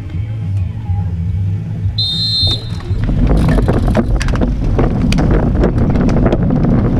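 Road race start: a short, high-pitched start signal sounds about two seconds in, then a rapid clatter of cleats clicking into pedals and bike drivetrains ticking as the pack sets off. Wind noise on the bike-mounted camera's microphone builds as the riders accelerate.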